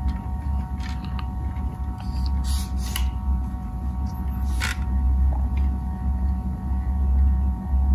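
Steady low hum, with a few soft clicks and rustles from a baitcasting reel being held and turned in the hand.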